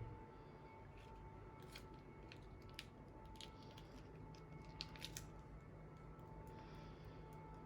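A few faint clicks and crinkles of a small packet being handled and opened, with a faint steady hum underneath.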